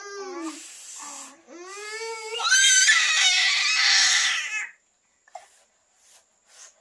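A young child crying: short whimpering cries, then a rising cry that turns into a loud wail for about two seconds before it stops.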